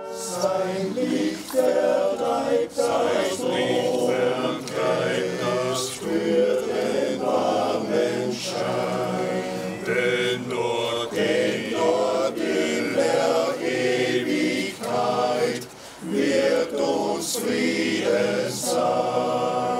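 Men's choir singing unaccompanied, a slow song sung in phrases, with a short breath pause about three-quarters of the way through.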